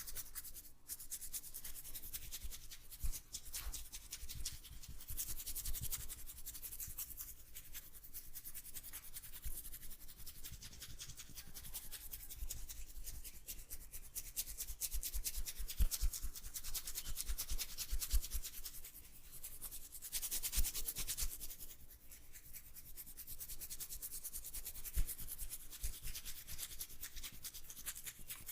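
Hands rubbing and kneading oiled hair and scalp: a dense, fine crackling rustle, with soft low thumps here and there.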